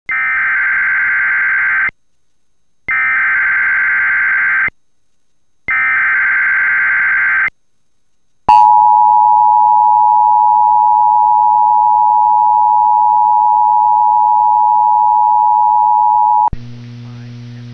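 Emergency Alert System activation for a severe thunderstorm warning. Three bursts of SAME digital header data play first, a screeching modem-like warble about two seconds long each with a second's gap between. Then the steady two-tone attention signal (853 and 960 Hz) sounds for about eight seconds, cuts off abruptly, and is followed by a low hum.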